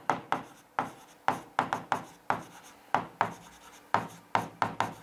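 Pen writing on an interactive smartboard screen: an uneven run of sharp taps and short scratches, a few each second, as each letter is stroked on.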